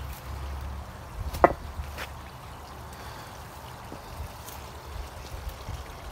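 Water trickling in a small garden pond stream, over a steady low rumble, with one sharp click about a second and a half in.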